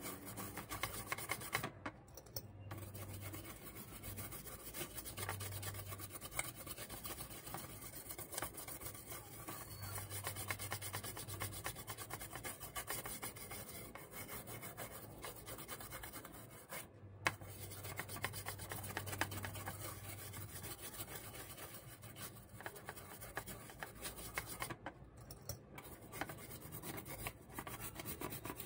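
A small stiff brush scrubbing rapidly back and forth over a graphics card's circuit board, with a few brief pauses. The brushing is cleaning corrosion left by water damage off the board's components.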